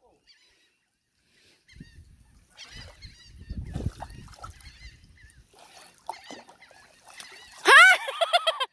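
Birds calling as they crowd in to be fed. Softer calls come over a low rumble early on. Near the end there is one loud, drawn-out call, then a quick run of shorter calls.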